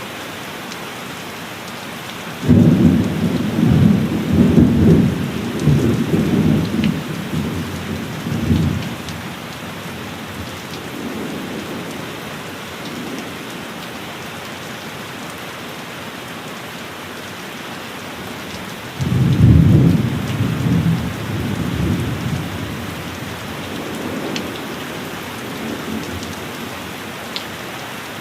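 Heavy rain falling steadily, with two rolls of thunder: the first begins suddenly a couple of seconds in and rumbles for several seconds before fading, and the second comes about twenty seconds in and rumbles off the same way.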